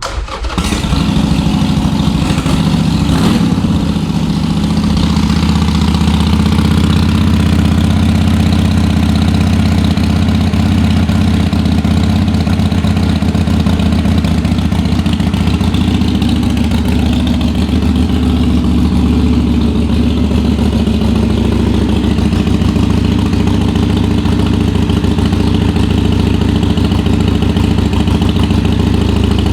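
Harley-Davidson Sportster Iron 883's air-cooled V-twin starting and settling into a steady idle.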